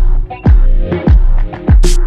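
Background music with a slow beat: deep kick drums that drop in pitch, about two a second, over a held bass note. Near the end a short high hiss leads into a fuller passage.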